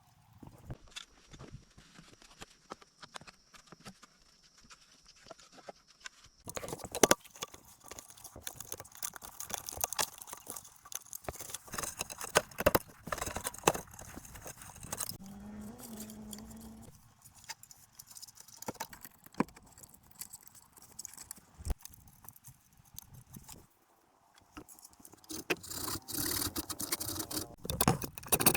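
Irregular knocks, taps and scrapes of hand work, in several separate stretches.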